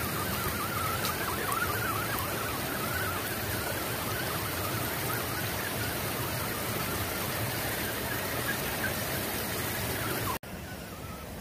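A shallow rocky creek rushing over stones, with the faint whine of an Axial Wraith 2.2 RC crawler's electric motor wavering in pitch as the truck drives through the water. About ten seconds in, the sound cuts abruptly to a quieter, steady hiss.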